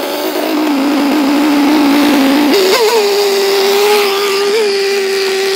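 Small RC boat engine running at high revs with a steady high-pitched note, its pitch stepping up sharply about halfway through and then holding.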